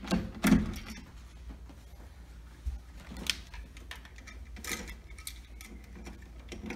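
Scattered small clicks and knocks of a dimmer switch being pressed into a plastic electrical wall box and readied to be screwed in, the loudest knock about half a second in.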